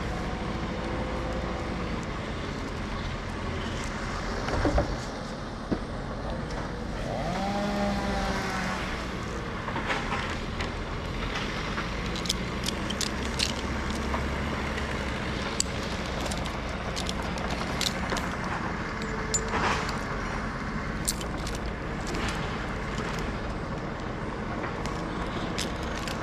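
An engine running steadily at a low pitch, with scattered sharp clicks and knocks, most of them in the middle stretch.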